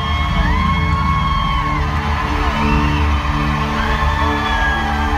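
Live folk-rock band playing at full volume, with heavy bass and drums, drum kit and electric guitars, and long held high notes over them, each lasting a second or so.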